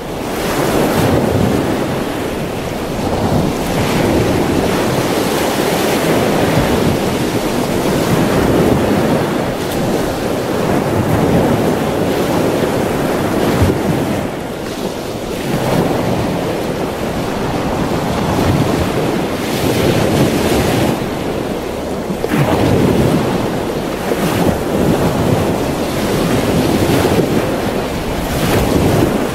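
Ocean waves surging: a steady rush of water that swells and eases every several seconds.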